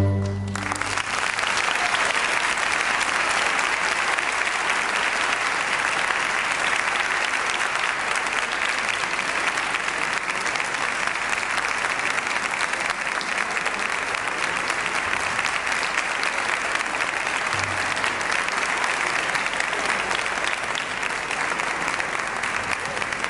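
Audience applauding steadily for over twenty seconds, beginning as the final chord of a string orchestra piece dies away.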